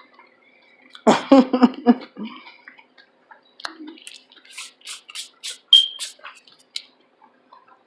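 A short murmur from the voice, then a quick run of wet clicking mouth sounds close to the microphone, about three a second, from a person who has just finished eating.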